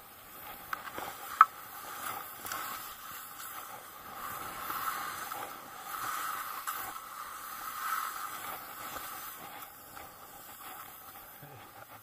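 Skis sliding and carving through snow: a hiss that swells and fades with each turn. A single sharp click about a second and a half in.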